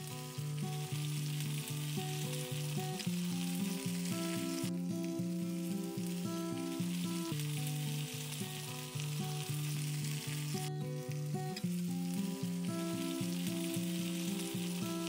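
Shrimp searing in hot vegetable oil in a skillet, a steady sizzle, under background music with held notes and a regular beat.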